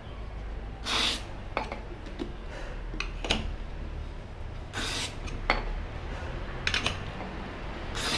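Aerosol can of carburetor cleaner spraying into a motorcycle tire in two short bursts, about four seconds apart, with light clicks and knocks of handling in between; the flammable cleaner is being put in to seat the tire bead by ignition.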